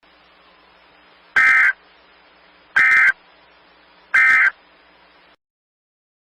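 Emergency Alert System end-of-message tones: three short bursts of SAME digital data squawk, about a second and a half apart, over a faint hiss. The bursts signal the end of the alert.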